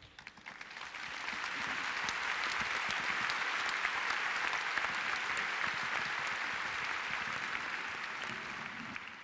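Audience applauding, swelling over the first second or two, holding steady, then dying away near the end.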